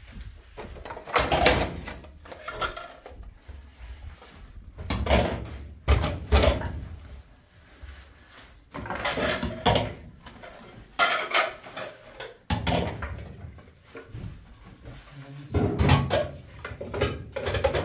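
Things being handled and moved about: irregular knocks, clatters and scrapes every second or two, some with heavier thumps.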